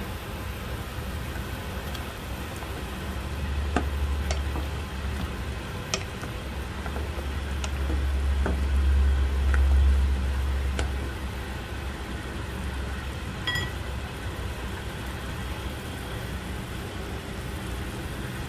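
Pork afritada boiling in a pot on the stove, stirred with a ladle that clicks and taps against the pot several times between about 4 and 11 seconds in. Under it runs a steady low hum that swells twice.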